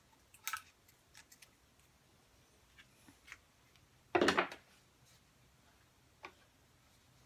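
Small handling noises of tape and tools on a wooden workbench: scattered light clicks and rustles, with one louder knock about four seconds in.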